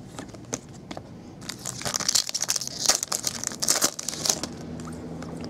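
Foil trading-card pack crinkling and tearing as it is handled open and the cards are slid out, densest from about a second and a half in to about four and a half seconds.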